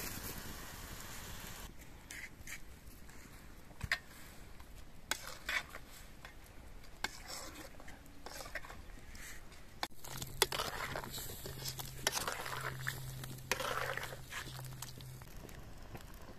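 A metal ladle stirring in a cooking pot, with scattered clinks, knocks and scrapes against the pot.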